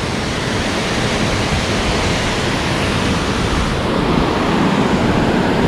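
Mountain waterfall and rushing white-water creek: a loud, steady rush of falling and tumbling water, shifting slightly in tone about four seconds in.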